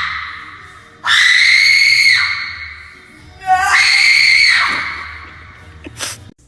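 Three long, high-pitched screams at a steady pitch, each lasting about a second: the first fades out at the start, the others come about a second in and again past the middle. A short knock follows near the end.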